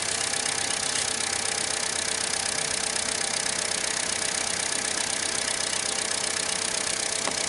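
Chevy Cruze 1.4-litre turbocharged four-cylinder idling steadily, running smooth with new spark plugs and a new ignition coil pack fitted to cure a cylinder 4 misfire.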